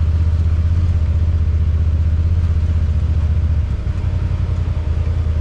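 Side-by-side UTV engine running steadily with a deep, even hum, its note dropping slightly nearly four seconds in.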